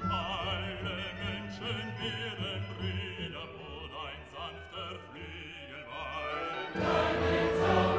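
Background music: a classical piece with an operatic voice singing with wide vibrato, growing fuller and louder near the end.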